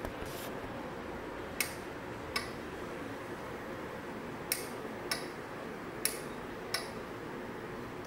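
Relay inside an OKOS 1-channel mini smart switch clicking on and off as it is toggled from its phone app, about seven short sharp clicks, loosely in on-off pairs.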